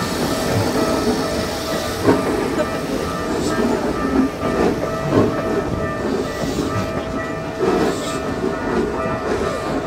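Electric commuter train passing over a level crossing, rumbling steadily, with irregular sharp clacks as its wheels run over rail joints.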